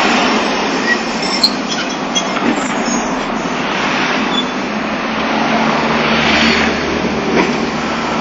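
Streetcar No. 212 of the Nagasaki Electric Tramway running past at close range, its steel wheels rolling along the street-running rails, with a few sharp clicks about a second and a half in.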